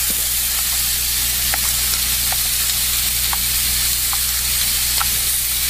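Chunks of vegetables sizzling in a smoking-hot, lightly oiled pan as they char, with a few faint pops scattered through, over a steady low hum.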